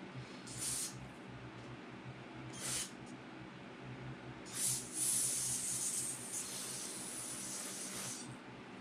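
Aerosol spray can hissing as carburetor parts are sprayed clean: three short bursts, then one longer spray of about three seconds near the end.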